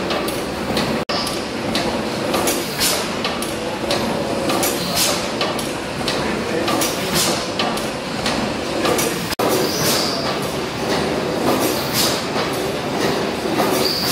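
1914 Richard Hornsby twin-cylinder gas engine running, its valve gear and crank giving a regular beat of sharp clicks and knocks over a steady mechanical clatter. The sound breaks off for an instant twice, about a second in and about nine seconds in.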